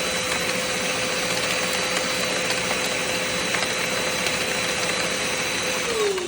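Lego V8 vacuum engine running on a vacuum cleaner's suction: a steady rush and whine with a light, rapid plastic clatter of the pistons, the knock the builder calls piston slap. Near the end the whine starts to fall in pitch as the suction winds down.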